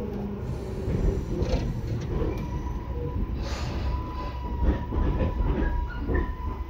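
Tobu 10030 series electric train running, heard from inside the car: a dense low rumble of wheels on track, with a steady thin whine from about a second in and a few short, sharper noises near the middle and end.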